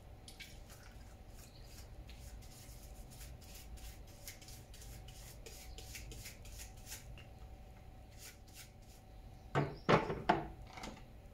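Plastic sprayer pump part being scrubbed with a small brush in a bucket of water: faint, irregular brushing and splashing strokes. About ten seconds in come a few loud knocks as plastic parts are set down in a plastic crate.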